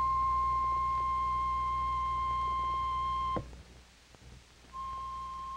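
Piano accordion holding a single high note, a steady, nearly pure tone that stops abruptly about three and a half seconds in and returns more quietly about a second later.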